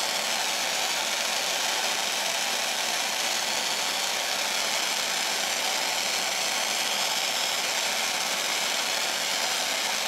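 Gas torch flame hissing steadily as it heats a copper ring terminal on a heavy battery cable for soldering.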